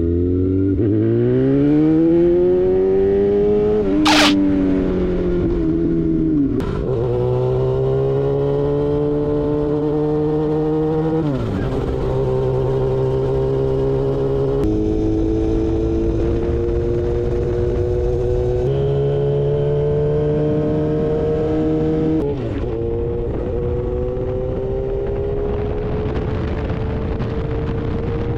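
Yamaha FZ6's 600 cc inline-four, through aftermarket GPR silencers, accelerating hard through the gears: its pitch climbs steadily, then drops at each upshift, four times. A short sharp crack comes at the first shift, about four seconds in.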